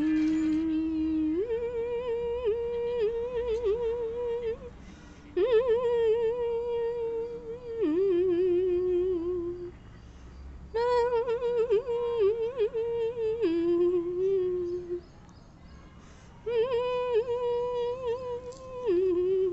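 A voice holding long, wavering notes, four times over. Each note is held for about two to three seconds and then drops to a lower note before stopping.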